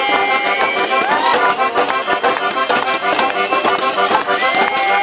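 Instrumental outro music with a quick, steady beat. Its melody slides up into long held notes, and the phrase repeats.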